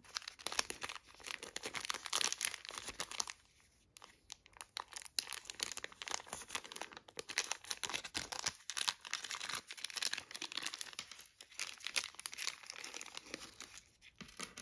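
Thin clear plastic accessory bag crinkling as it is unwrapped by hand, in irregular crackly handfuls with brief pauses about four seconds and eight and a half seconds in.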